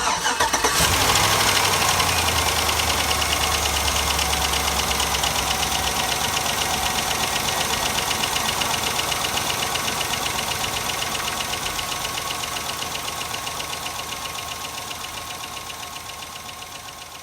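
GMC Sierra 1500's 5.3-litre V8 just started and idling, with a fast, even ticking throughout. The low rumble of its fast idle eases off about six seconds in. The ticking is the valvetrain tick the owner traced to worn push rods.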